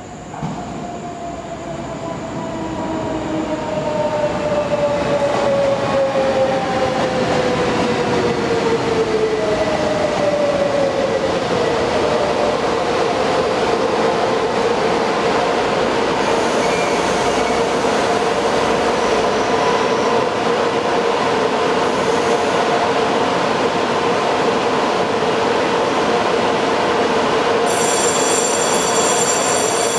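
Daewoo EMU500 electric multiple unit pulling in and braking: its motor whine falls in pitch over the first dozen seconds, then settles into a steady hum as the train slows to a stand. A high electronic tone comes in near the end.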